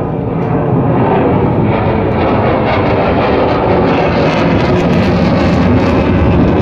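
Fighter jet flying past, its engine noise a loud, steady rumble that swells about a second in.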